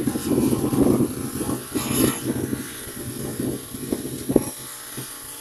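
Wind buffeting the microphone in irregular gusts that ease off near the end, over a faint steady low hum from a small motor.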